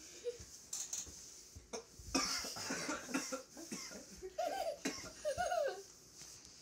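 Young man coughing and sputtering in a series of harsh bursts, choking on a mouthful of dry ground cinnamon, with a few strained, high-pitched gasps in the second half.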